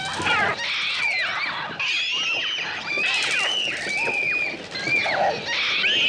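Film sound of a flock of seagulls shrieking, many cries overlapping one after another, each bending down in pitch at its end.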